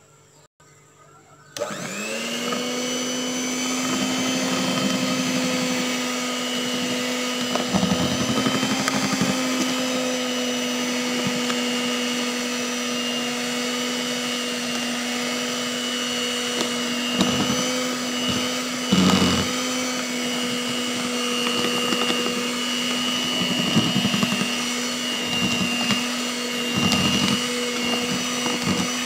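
Electric hand mixer switched on about a second and a half in and running steadily, its beaters whisking thick sponge-cake batter while flour is being mixed in. A few short knocks sound over the motor.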